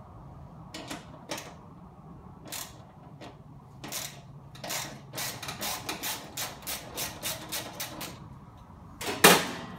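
Metal wrench working a 13 mm nut and washer off a bearing bolt: scattered metallic clicks, then a quick run of about three or four clicks a second from about four seconds in, and one louder metal clank near the end.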